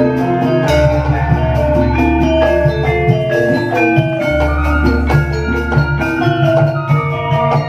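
Live Javanese campursari ensemble playing an instrumental passage: gamelan metallophones step through a melody over two long deep bass notes, with no singing.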